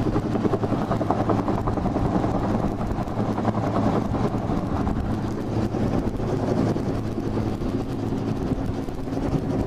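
Search-and-rescue helicopter hovering low overhead: steady rotor and engine noise with an even low drone.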